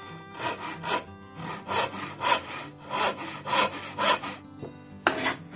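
Hand saw crosscutting a small piece of pallet wood with rasping back-and-forth strokes, about two a second, with a louder stroke near the end.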